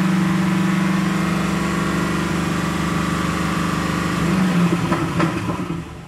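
Stock bimodal exhaust of a 2017 Chevrolet SS's 6.2-litre V8, heard at the left rear tailpipe with the valves open in Sport mode, held steady at about 2,000 rpm and reading in the 90s of dBA. Near the end the revs are let off and the sound drops back toward idle.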